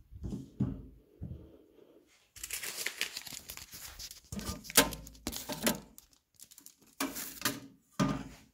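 Hands handling a mailbox and its lid: rustling and scraping, broken by several sharp clicks and knocks, the loudest about halfway through.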